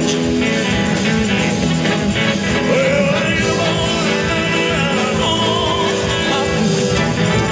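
Live rock-and-roll band playing, with a male lead singer over electric guitars, bass, drums and keyboards.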